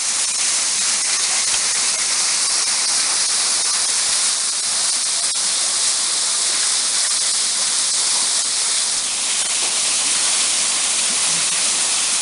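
Steady rushing hiss of falling water from a waterfall, running after heavy rain.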